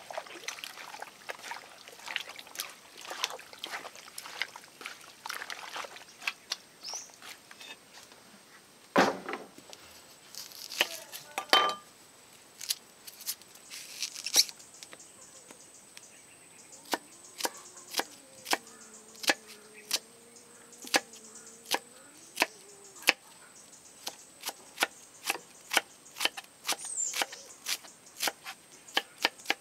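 Hands mixing raw meat pieces in a wooden bowl, giving soft wet clicks and squelches, then a kitchen knife chopping a red onion on a wooden log chopping board: an even run of knocks of the blade on the wood, about two a second.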